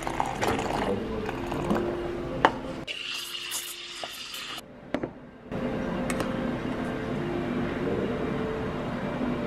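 Liquid pouring into paper cups while drinks are made, over soft background music; the sound drops out briefly about halfway through.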